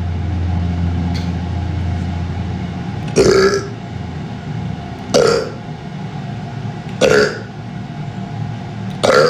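A man burping four times: short, loud belches about two seconds apart, over a steady low hum.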